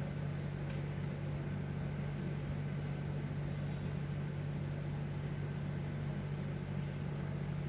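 Steady low electric hum of a running machine, with a few faint light clicks of a plastic spoon against a plastic container.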